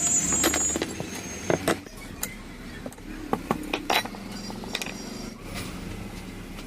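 Kirloskar electric water pump running with a steady low hum, with irregular sharp metallic clicks and clinks over it: the abnormal noise the pump is making.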